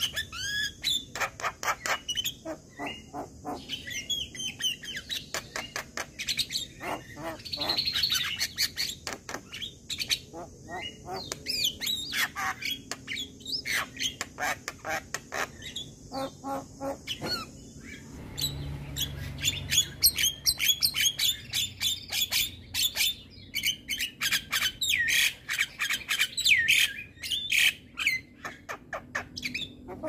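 Javan myna (jalak kebo) in full song: a fast, unbroken string of sharp clicks, squawks and wavering whistled notes. A low hum comes in briefly about two-thirds of the way through.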